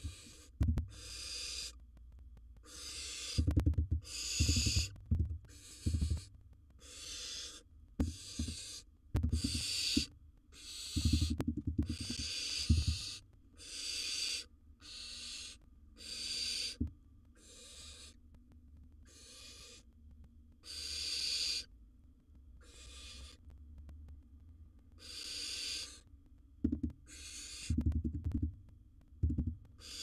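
Barn owl giving a long series of rasping hissing calls, each under a second and about one a second, with low thuds from movement in the nest box between them.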